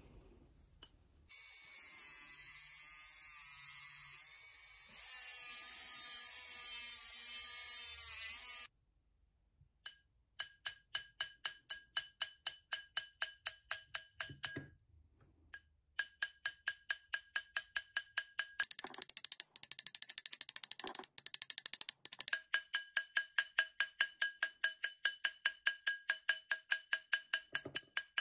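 Jeweller's hammer tapping a brass wire ring on a steel ring mandrel: dozens of quick light strikes, about three to four a second, each leaving a bright metallic ring. The strikes texture the ring with a hammered pattern. For the first several seconds, before the tapping starts, there is a steady hiss.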